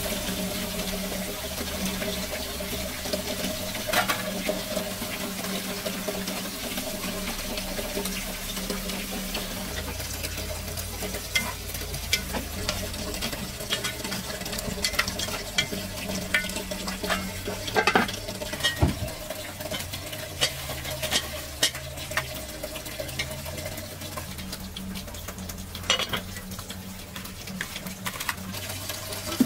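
Food sizzling as it fries in a pan, with scattered clicks and scrapes of a utensil stirring it.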